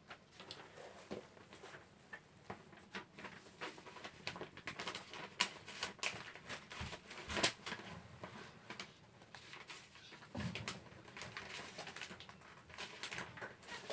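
Handling noise: irregular light clicks and taps with faint rustling, as paper and small objects are moved about by hand. One tap about seven and a half seconds in is the loudest.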